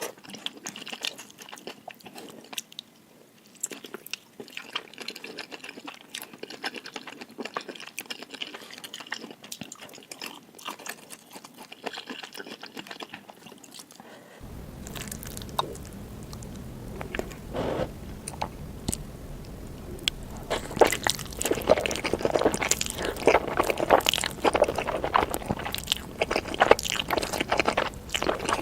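Close-miked eating sounds: chewing noodles, with many small wet clicks and smacks from the mouth. They grow louder and denser about two-thirds of the way through.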